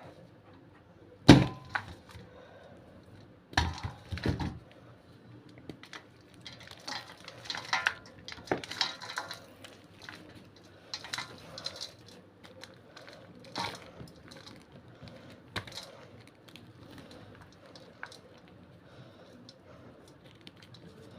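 A slab of gym chalk topped with cornstarch being crushed by hand: a loud sharp crack about a second in, a cluster of crunches a couple of seconds later, then a run of smaller crumbling crunches that thin out toward the end.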